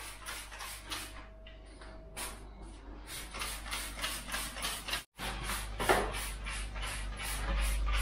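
Hand trigger spray bottle squirting repeatedly, two or three short hissing sprays a second, misting the wall tiles and the vinyl covering sheet.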